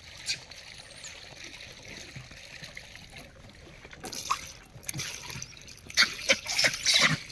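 Close rustling and crackling of food being handled at a bag while gray langurs take it from hand. It is sparse for the first few seconds, then grows busier about four seconds in, with a dense, louder run of crackles near the end.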